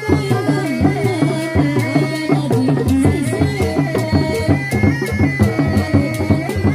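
Sundanese reak ensemble playing: dogdog frame drums beating fast and densely under a wavering melody line.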